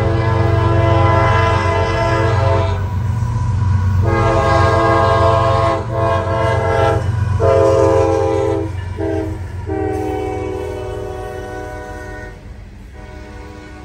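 A CSX freight train's diesel locomotive air horn sounding a chord in a series of blasts: a long one, then several more separated by short gaps, growing fainter near the end. Beneath it runs the steady low rumble of the locomotives and rolling cars passing by.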